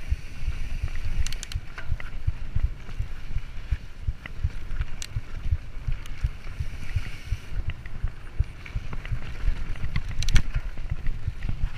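Mountain bike rolling fast over a bumpy dirt trail, heard close on the rider: a constant low rumble and wind buffeting on the microphone, with a few sharp rattles from the bike over bumps.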